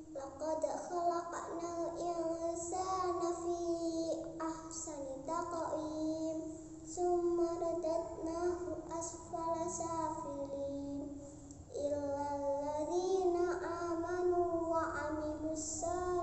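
A young girl singing a religious piece solo, in long held notes with ornamented turns and glides, pausing for breath about eleven seconds in.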